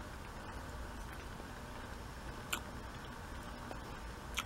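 A metal fork cutting through soft sponge cake clicks twice against the plate, about two and a half seconds in and again near the end, over a faint steady hum.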